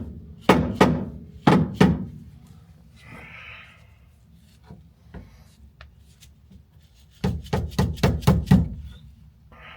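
Hammer taps on the metal tabs of a chrome trim strip, knocking them over to seat the trim. There are four taps in the first two seconds, a brief scrape, then a quick run of about eight taps near the end.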